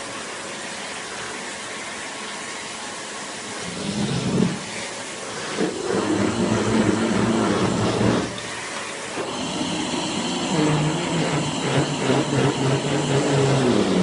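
Household vacuum cleaner running with a steady hiss. Its sound grows louder and lower in several stretches of a few seconds each, about four seconds in, again from about six to eight seconds, and from about ten seconds to the end.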